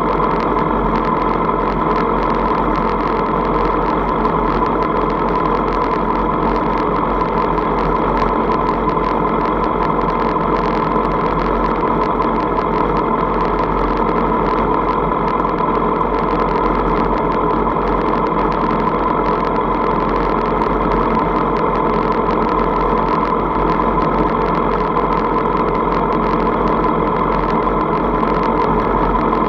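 Motorcycle engines idling steadily in a queue of sport bikes, loud and unchanging.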